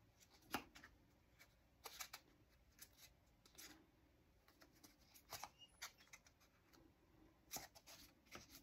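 Faint, scattered rustles and light taps of hands folding craft foam strips.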